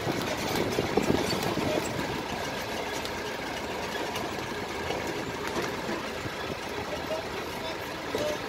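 Safari vehicle's engine running, heard from inside the cabin, with scattered rattles and knocks; a little louder about a second in.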